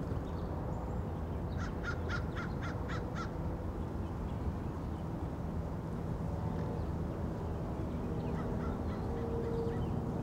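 Outdoor residential-street ambience picked up by a shotgun microphone: a steady low rumble, with a bird, likely a crow, giving a quick run of seven calls about two seconds in and fainter calls near the end.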